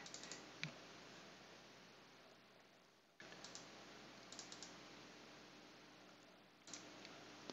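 A few faint clicks of a computer mouse and keyboard over near-silent room tone: several near the start, a quick run of clicks around the middle, and one more near the end.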